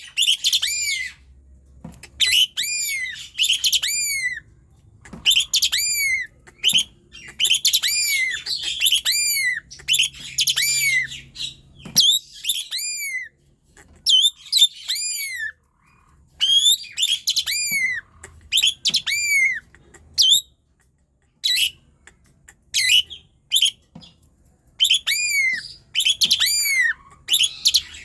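Asian pied starling (jalak suren) singing vigorously: bursts of quick arching notes that fall in pitch, each burst a second or two long, with short pauses between them.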